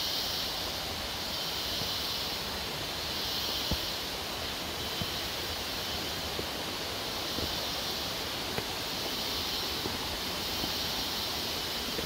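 Steady rush of a rocky rainforest stream, with a high hiss that swells and fades every few seconds and a few faint footsteps on stone steps.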